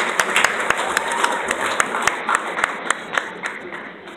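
Audience applauding, with some sharp claps close by standing out; the applause thins out and dies down near the end.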